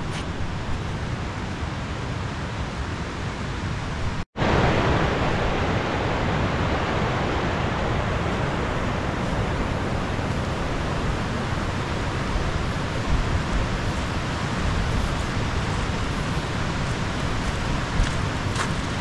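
Steady rushing noise with no rhythm or tone. It drops out for an instant about four seconds in and then carries on a little louder.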